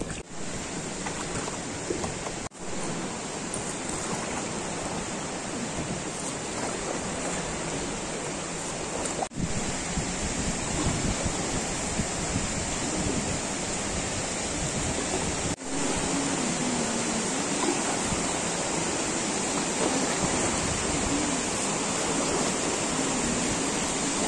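Steady rushing of water in a limestone canyon river, where small waterfalls pour into it, with some wind on the microphone. The noise breaks off briefly three times.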